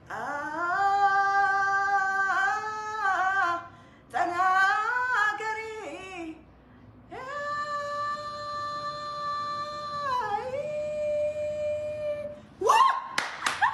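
A woman singing unaccompanied in a small room, in three phrases of long held notes with slides and bends between them; the last note is held for about five seconds. Near the end she breaks off into laughter, with several sharp claps.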